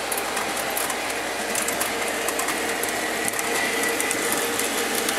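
O-gauge model trains running on the track: a steady electric motor whir and rumble, with wheels ticking over the rail joints and a faint whine in the middle.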